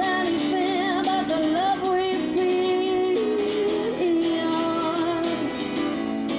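A song: a singer holding a wavering melody line over instrumental accompaniment with a regular beat.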